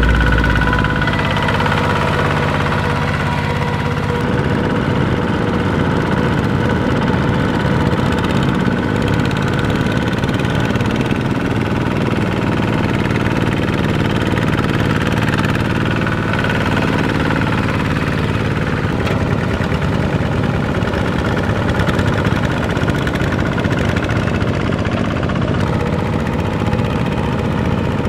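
Single-cylinder Kubota ZT diesel engines of two-wheel walking tractors running steadily under load with a rapid, even chug as they pull cage wheels through a flooded rice paddy.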